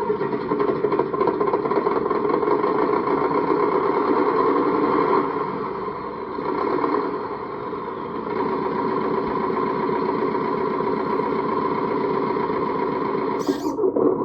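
Simulated diesel engine sound from a 1/14 scale RC A40G articulated dump truck's sound module, played through its small speaker. It runs steadily, dips in level for a couple of seconds around six seconds in, then steadies again. A short sharp click comes near the end.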